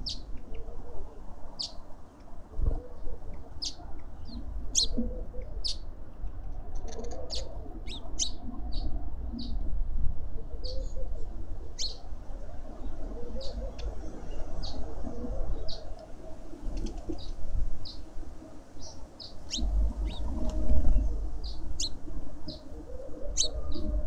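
Garden songbirds at a feeder chirping: many short, high chirps, scattered and irregular. Under them runs a low wind rumble on the microphone, gusting stronger about twenty seconds in.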